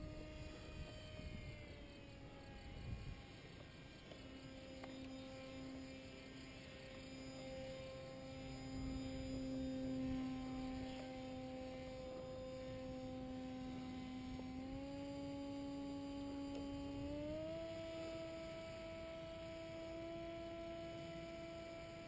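Paramotor engine droning in the air as a steady hum. Its pitch dips slightly in the first couple of seconds, then rises in two steps in the second half as the engine speed changes. Low wind rumble on the microphone is heard in the first few seconds.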